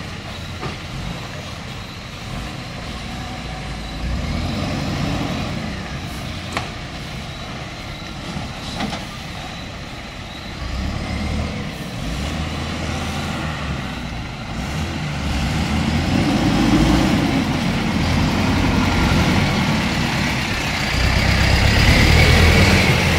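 Heavy truck engine running, getting steadily louder over the second half as the truck comes closer, with a couple of brief clicks in between.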